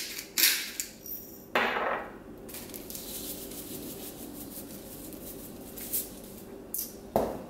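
Seasoning a salad: a pepper grinder clicks and grinds for about a second, then salt is shaken from a canister, with a few knocks of containers being handled near the end.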